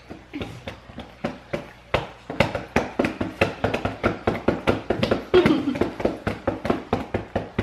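Quick, repeated sharp taps or clicks, sparse at first and then about three to four a second, with a brief voice a little past five seconds in.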